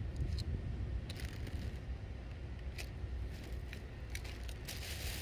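Wind buffeting the microphone as a constant uneven low rumble by the sea, with scattered faint clicks and crackles.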